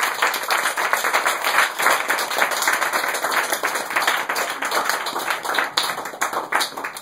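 Audience applauding: many hands clapping at once, then thinning to scattered claps toward the end.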